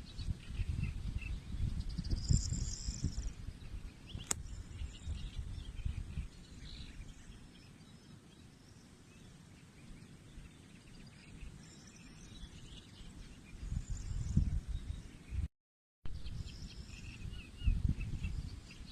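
Outdoor nature ambience: faint small bird chirps over a gusty low rumble of wind buffeting the microphone, heaviest in the first few seconds and again near the end. A single sharp click about four seconds in, and the sound cuts out completely for about half a second near the end.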